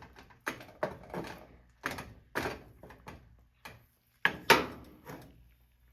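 A cooking utensil scraping and knocking against a frying pan while an egg-white scramble is stirred: an uneven run of sharp strokes about every half second, the loudest about four and a half seconds in.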